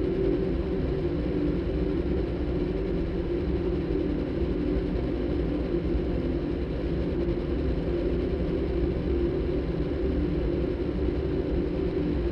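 Electronic soundtrack made by cross-synthesizing a motorbike engine recording with a đàn bầu (Vietnamese monochord) concert recording: a steady, low, rumbling engine-like drone with a held tone over it and no breaks.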